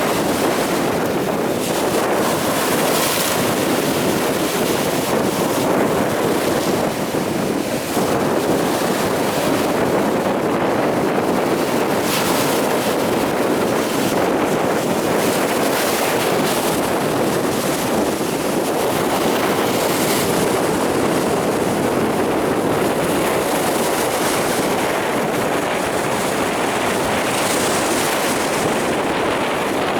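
Storm surf on the Sea of Azov, waves breaking in a steady, loud rush, with strong wind buffeting the microphone.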